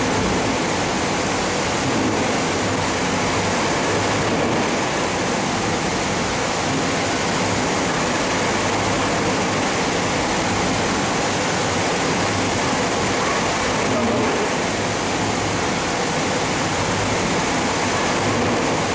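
Steady loud rushing noise, even from low to high pitch, with no separate knocks, barks or other distinct events.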